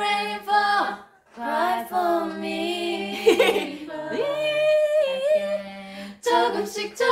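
Female voices singing a pop song a cappella, with no instruments. There is a short break about a second in, and a long held note toward the end.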